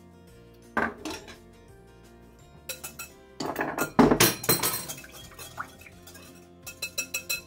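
Kitchenware being handled: a single knock about a second in, a louder clatter of dishes around the middle as a glass bowl is picked up, then a quick run of spoon clinks against the glass bowl near the end. Steady background music plays underneath.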